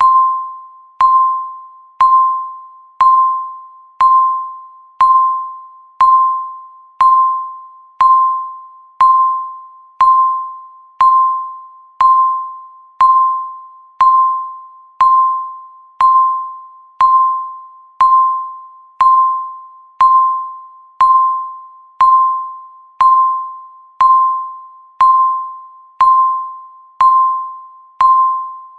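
Countdown timer's per-second tick: a short, clear electronic beep, one every second, each struck sharply and fading away before the next.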